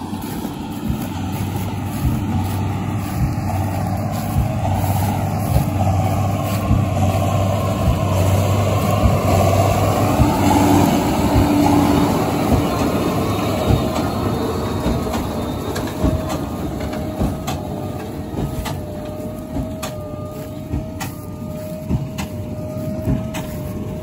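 Heavy diesel farm machinery running steadily under load during harvest, with a low engine hum; a steady high whine comes in about two-thirds of the way through, and there are a few knocks near the end.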